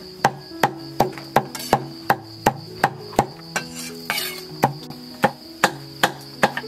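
Kitchen knife chopping eggplant on a wooden chopping board: sharp, evenly spaced knocks about two or three a second, broken by a short rustle about four seconds in.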